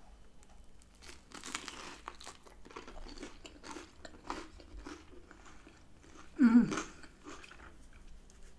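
Close-up chewing and crunching of food, with a run of crackly bites. About six and a half seconds in, a short louder vocal sound falls in pitch.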